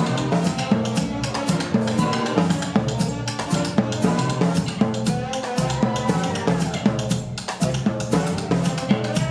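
Drum kit playing a Mozambique groove, a Cuban-style Latin rhythm, as a dense run of stick strokes on the toms, snare and cymbals. A saxophone ensemble plays along, holding pitched notes over the drums.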